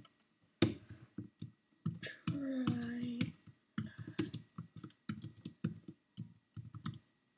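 Typing on a computer keyboard: quick irregular runs of key clicks. A voice holds a short note for about a second just after two seconds in.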